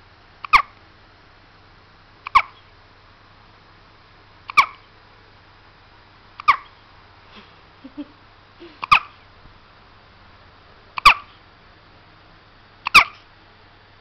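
Two-week-old baby hiccupping: seven short, sharp, loud hiccups in a steady rhythm about two seconds apart.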